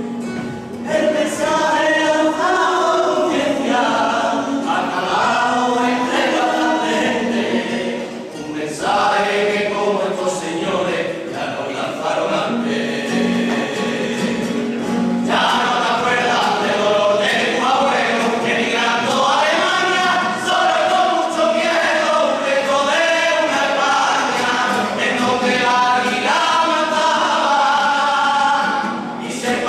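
Carnival comparsa singing a song together in chorus, the voices coming in strongly about a second in.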